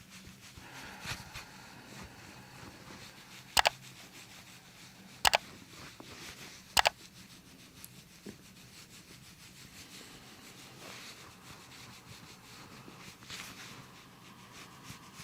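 Hands rubbing and pressing on skin and clothing during chiropractic soft-tissue work around the hip and abdomen. Three sharp clicks come a few seconds in, about a second and a half apart.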